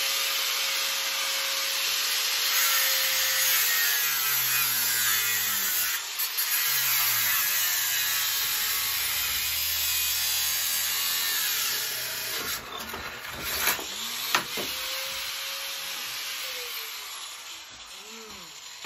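Handheld angle grinder cutting into a steel lawnmower wheel, a steady loud grinding with a high whine. About two-thirds of the way in, two sharp cracks cut the grinding short and the motor's whine falls away: the grinding disc snapping.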